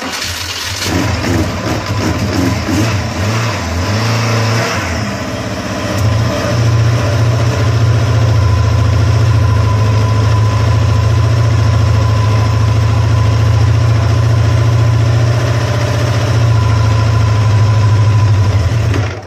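Münch Mammut's 1,177 cc NSU inline four-cylinder SOHC engine with two twin-choke Weber carburettors starting up. It revs unevenly for the first few seconds, settles to a steady idle from about six seconds in, and the sound stops abruptly near the end.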